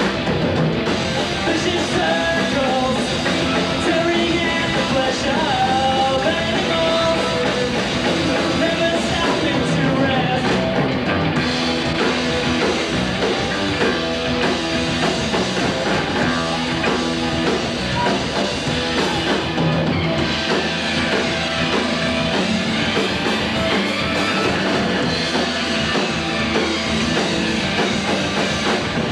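Rock band playing live: electric guitars, bass and a drum kit with cymbals, loud and continuous. About twenty seconds in, a high sweeping sound rises and falls over several seconds within the music.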